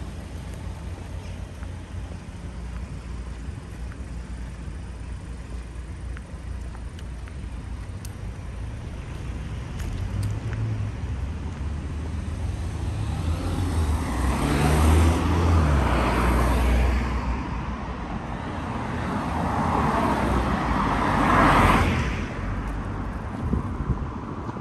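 Street traffic: two cars pass one after the other, each swelling up and fading away, the first a little past halfway and the second about three-quarters through, over a steady low rumble of traffic.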